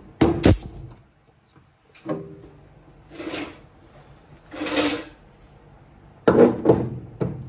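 Pneumatic sheet-metal hole punch firing twice, each stroke a sharp snap, one near the start and one about six seconds in, as it punches quarter-inch holes through the car's sheet metal for plug welds. Shorter hisses come between the snaps.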